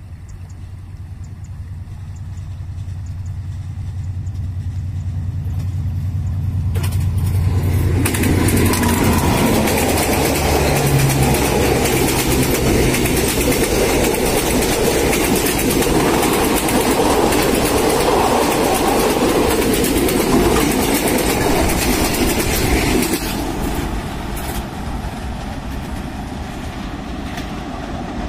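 Passenger train passing close by: a diesel locomotive's engine hum grows louder as it approaches. About eight seconds in, the loud noise of the coaches' wheels running over the rails takes over and lasts some fifteen seconds, then drops off sharply as the last coach goes by and the train recedes.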